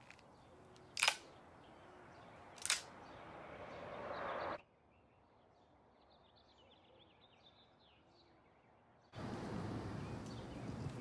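Two sharp clicks about a second and a half apart over a rising hiss that cuts off suddenly. Then faint bird chirps over quiet outdoor ambience, until a louder outdoor ambience cuts in near the end.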